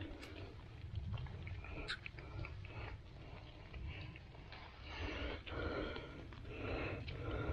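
Chanterelles being picked from the forest floor by hand: soft rustling of leaf litter and handling noises, with a sharp click about two seconds in, over a steady low rumble on the microphone.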